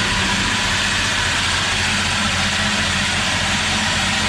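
An engine running loudly at a steady speed, with no revving.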